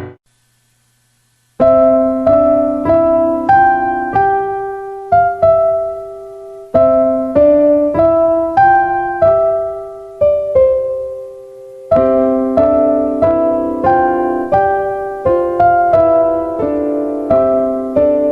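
Background piano music: a melody of separate notes, each dying away, after a second and a half of silence.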